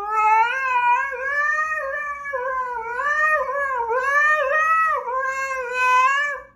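Siberian husky howling when asked to sing: one long unbroken howl whose pitch keeps wavering up and down like a song, cutting off just before the end.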